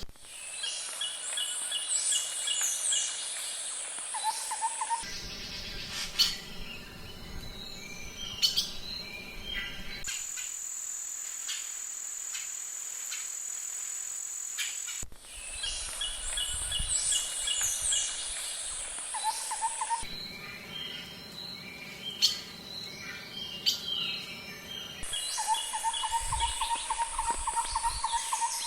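Wild birds singing and chirping in woodland, heard in short outdoor clips that cut abruptly about every five seconds. Between about ten and fifteen seconds in, the chirps give way to a steady high whine.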